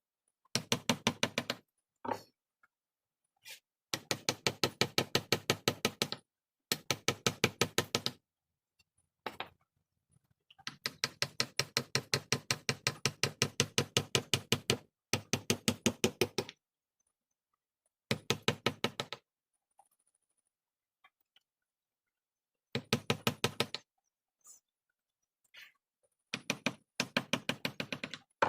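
Carving mallet tapping a chisel into hardwood in quick runs of about ten light strikes a second. Each run lasts a few seconds and stops for a short pause before the next.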